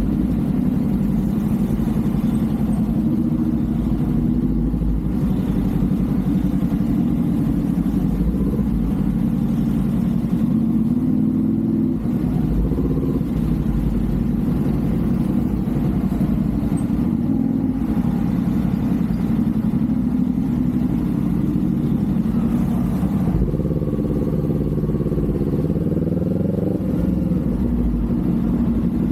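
Kawasaki Z400's parallel-twin engine and exhaust running steadily under way, heard from the rider's seat. About twenty-four seconds in the engine note climbs for a few seconds as the bike accelerates.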